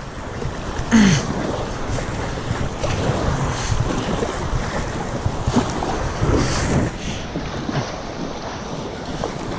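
Fast river water rushing around a kayak running a riffle, with the paddle blades splashing on each stroke and wind buffeting the microphone.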